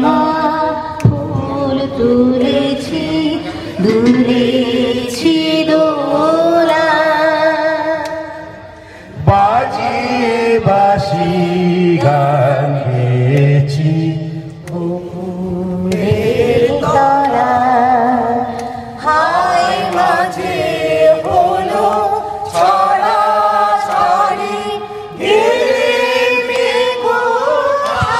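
A group of men and women singing a Bengali song together.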